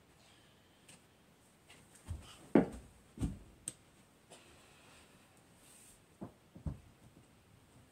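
Dull thumps in a small room from a boy moving about and playing with a football: a cluster of three, the loudest about two and a half seconds in, then two more near the end, with a couple of light clicks.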